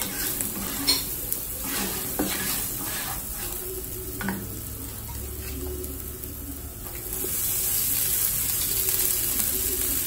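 Spices, lentils and peanuts sizzling in hot oil in a nonstick frying pan, with a spatula scraping and tapping against the pan as they are stirred. About seven seconds in the sizzle gets louder as cooked rice is dropped into the oil.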